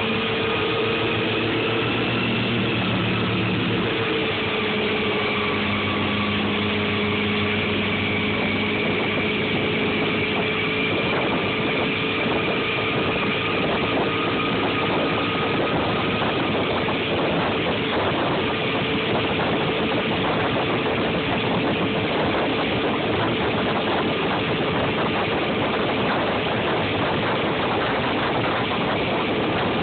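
Motorboat engine running steadily at speed, with wind and water noise over it.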